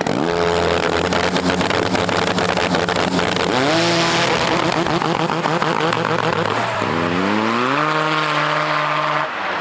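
Snowmobile engines revving hard under acceleration. Each time the pitch climbs quickly and then holds steady at high revs, at the start, again about three and a half seconds in, and again near seven seconds. The sound falls off just before the end.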